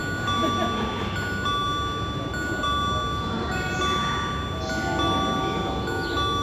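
Two-note electronic station chime repeating about once a second on the platform, with a second, lower run of tones joining about two-thirds of the way through, over the low rumble of a train pulling in.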